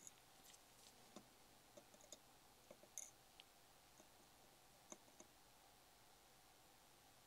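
Near silence, broken by faint, scattered small clicks, about one a second: tweezers tapping on an LED bulb's circuit board while a tiny resistor is set in place for soldering.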